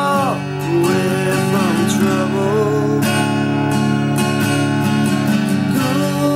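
Acoustic guitar being strummed steadily, chords ringing on continuously.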